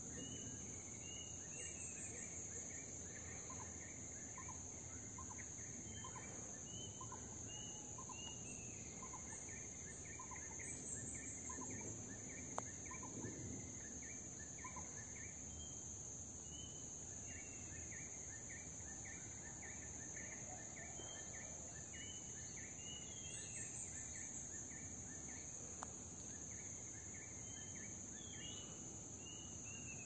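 Rainforest ambience: a steady high-pitched insect drone under series of short, quick bird calls repeated throughout. A sharp tick comes about twelve seconds in, and a fainter one near the end.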